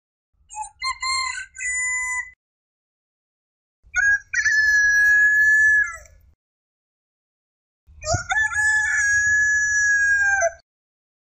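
Rooster crowing three times: a short, broken crow about half a second in, then two long crows with a held middle note, at about four and eight seconds.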